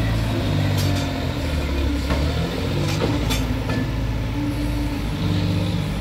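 Diesel tractor engine running under load as it hauls a trolley heaped with soil, its pitch shifting up and down. A few sharp knocks come about one, three and three and a half seconds in.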